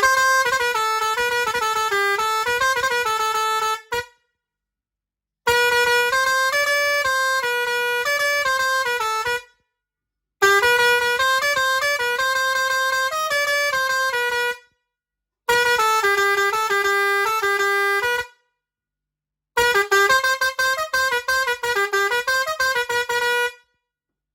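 Kobra musical air horn playing short tunes: five blasts of about four seconds each, separated by brief pauses, each a run of loud stepped notes, the last one broken into rapid short toots.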